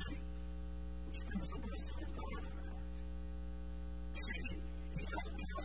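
Steady electrical mains hum with a buzz of evenly spaced overtones, held without change through a pause in the talk.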